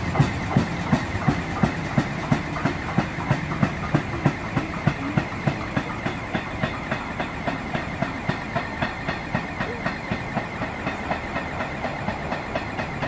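NJ Transit double-deck commuter train pulling away, its wheels clicking over rail joints in a steady rhythm of about three clicks a second that slowly fades. A faint steady high whine runs underneath.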